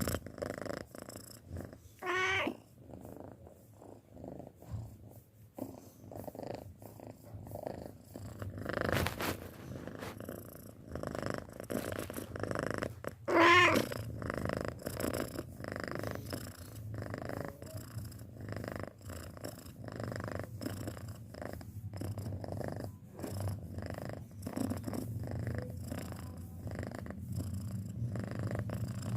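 Six-month-old domestic cat purring steadily, a fast pulsing low rumble. Twice, about two seconds and about thirteen seconds in, a short wavering cry cuts in, and the second cry is the loudest sound.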